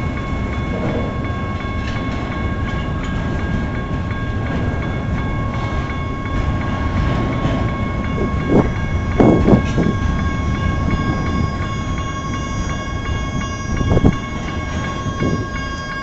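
A double-stack intermodal freight train passes over the crossing while a General Signals type 1 electronic crossing bell rings steadily above the train noise. There are a few louder knocks from the cars at about halfway and again near the end.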